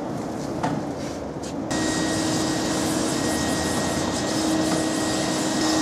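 A shop vacuum runs steadily, a bright hiss with a constant whine and hum, as it cleans a car's interior. It comes in abruptly a little under two seconds in; before that there is only a dull rumble with a few light clicks.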